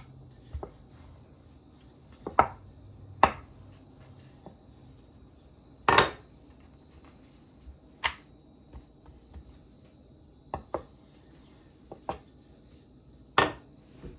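Wooden rolling pin knocking and rolling against a wooden board while pastry dough is rolled out: a series of sharp wooden knocks a second or two apart, the loudest about six seconds in.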